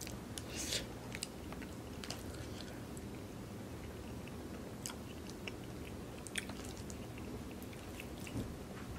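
Close-miked chewing: soft wet mouth sounds with scattered small clicks and smacks as food is chewed, over a faint steady low hum.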